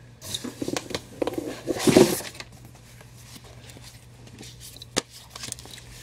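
Comic books and the cardboard shipping box rustling and knocking as a hand digs in and pulls out a stack of copies, busiest in the first two seconds, with a sharp tap about five seconds in. A faint steady electrical hum runs underneath.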